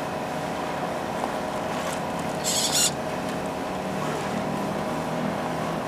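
Electric motor and Axial geared transmission of a scale RC crawler whining steadily as it climbs a dirt slope, the pitch shifting a little past the halfway point. A brief hiss about two and a half seconds in.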